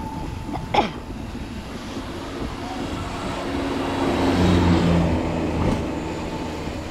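Small box truck's engine passing in the opposite direction, swelling from about three seconds in, loudest around four to five seconds, then fading, over steady road and wind noise. A brief sharp sound with a falling pitch about a second in.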